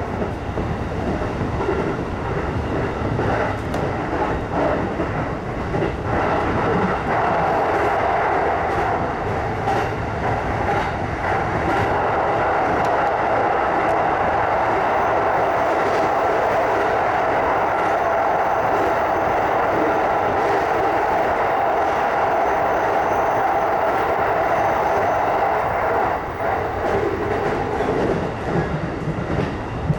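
JR East E233-5000 series electric commuter train running at speed, heard from inside the leading car: steady rolling noise of wheels on rail with scattered clicks from the track. The running noise grows louder about seven seconds in and eases back near the end.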